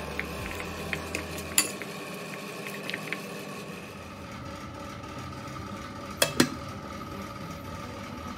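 Metal spoon clinking and scraping against a ceramic bowl as marinated beef cubes are stirred, with light clicks through the first three seconds, then two sharp knocks about six seconds in, over a steady hum.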